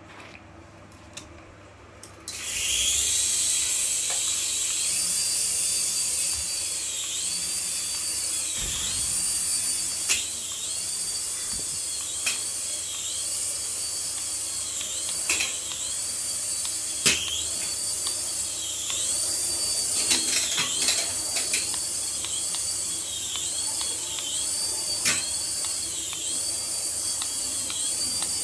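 Battery remote-control toy whirring at a high pitch. It starts about two seconds in and dips briefly in pitch about once a second, with a few scattered clicks.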